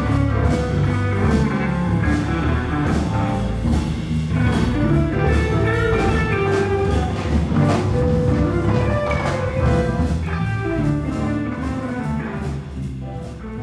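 Electric guitar from a Telecaster-style solid-body playing a bluesy jazz line over a band with bass and drums. The music fades out near the end.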